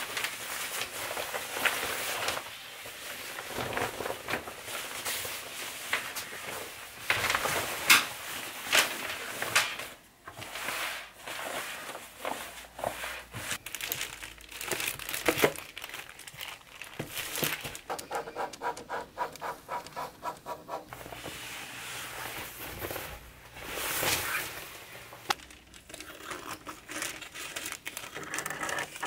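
Fabric and pattern paper being handled: irregular rustling and crinkling with sharp crackles, a few seconds of quick, even rasping in the middle, and scissors cutting through thin pattern paper near the end.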